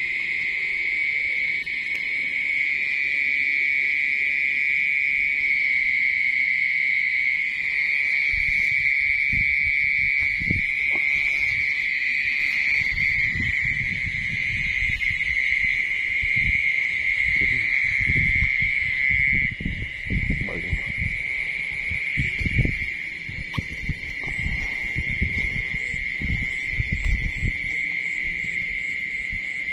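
Dense chorus of crickets, a steady high trill that runs unbroken. From about a quarter of the way in, irregular low thumps and rustles join it and grow busier in the second half.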